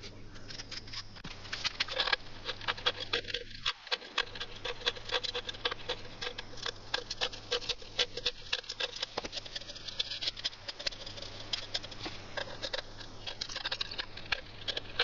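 Thin aluminium drink-can sheet being worked by hand: a dense, irregular run of small clicks and crinkles, likely from trimming and bending the metal.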